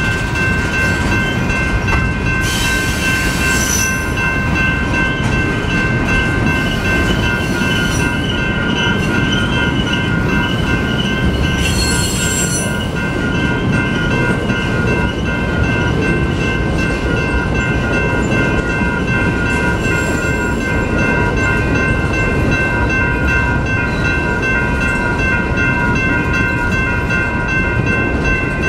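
Freight cars rolling past on the rails, a steady rumble of wheels. Through it the railroad crossing bell rings steadily. Two short high wheel squeals come near the start and again about twelve seconds in.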